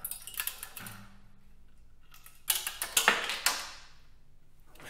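Handling noise as a small vacuum ion pump is lifted off its mounting: a short clatter of clicks at the start, then a louder burst of rattling, clicking metal about halfway through.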